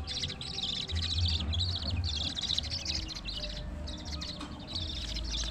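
Small birds chirping in rapid twittering bursts, one after another with short gaps, over a low steady hum.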